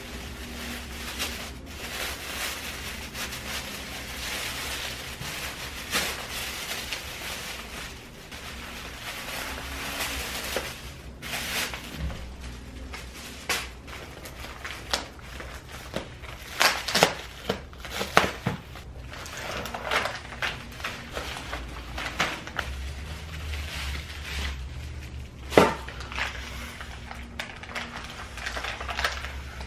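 Scattered clicks and knocks of objects being handled over a steady low hum, busiest about halfway through, with one sharp knock near the end.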